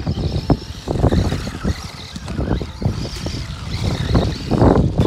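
Funtech 1:18 scale electric RC truck driving over a gravel driveway: a small motor whining over an irregular, rough crunch and rattle from the tyres and chassis on the gravel.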